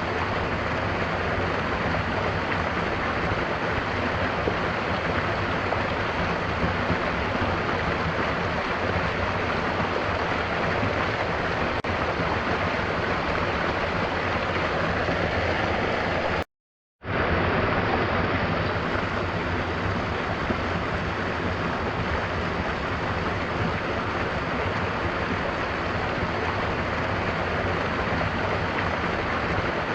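Steady rushing of a waterfall with rain, an even wash of water noise. It cuts out completely for about half a second just past halfway, a break in the recording, then carries on unchanged.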